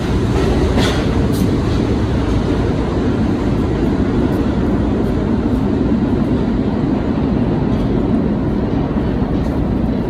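1964-65 Budd R32 subway train pulling out of an underground station and running off into the tunnel: a loud, steady rumble of wheels on rail, with a few short clicks in the first second or so.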